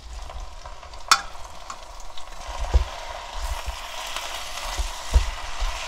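Soaked miyeok seaweed and dried mussels stir-frying in sesame oil in a pot, sizzling, louder from about halfway through, as a wooden spoon stirs and knocks against the pot. A sharp clink about a second in.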